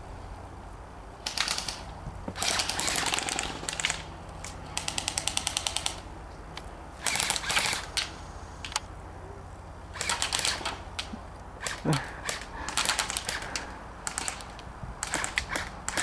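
Airsoft guns firing bursts of rapid shots across the field. The clearest burst, about five seconds in, is an even clatter of about a dozen shots a second lasting just over a second.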